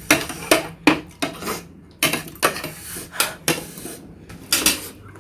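Eating utensils clinking and scraping against a bowl as instant noodles are eaten: an irregular run of about a dozen sharp clinks.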